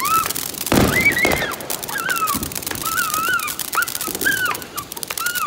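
Ground fountain firework crackling and hissing as it sprays sparks, with a string of short, high, rising-and-falling whining cries over it, one or two a second.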